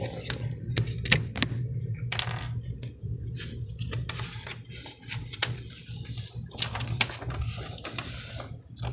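Paper rustling and light clicks as a model kit's instruction manual is handled and its pages are turned, over a steady low hum.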